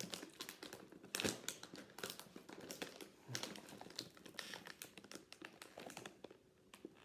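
Snack bag of Cheez-It Crunch crackers crinkling and rustling as it is opened and handled, a run of irregular crackles with a louder crackle about a second in.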